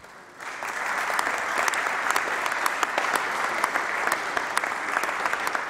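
Audience applause: many hands clapping together. It starts about half a second in and tapers off near the end.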